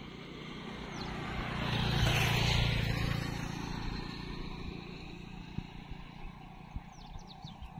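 A motor vehicle passing on the road: its engine hum and tyre noise swell to a peak about two to three seconds in, then fade away.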